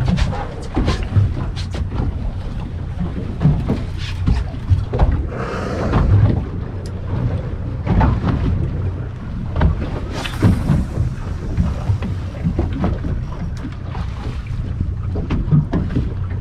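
A fishing boat's engine running steadily, with wind buffeting the microphone and scattered knocks.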